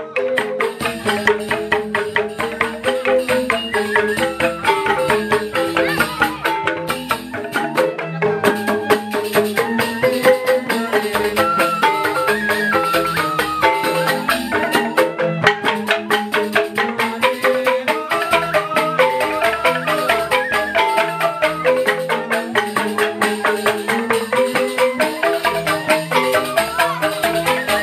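Balinese joged bumbung gamelan playing: a dense, fast run of interlocking mallet notes on bamboo xylophones, with drums, going on without a break.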